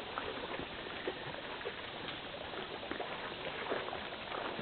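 Lake water lapping at a flooded shoreline: a steady wash with scattered small splashes.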